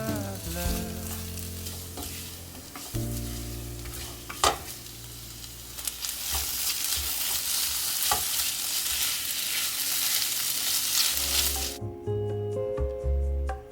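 Food sizzling as it is stir-fried in a pan, with a sharp clack of a utensil about four and a half seconds in. The sizzling cuts off suddenly near the end, leaving background music.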